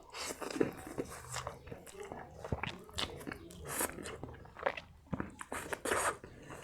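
A person biting and chewing crunchy food close to the microphone, with many irregular sharp crunches.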